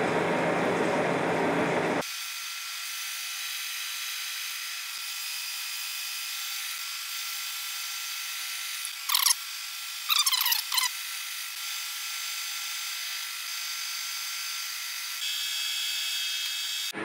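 Monarch engine lathe taking a turning cut on a metal bar with an insert tool: a steady high machining whine. Brief sharp crackling scrapes from the chips come twice near the middle. The low rumble drops away after about two seconds.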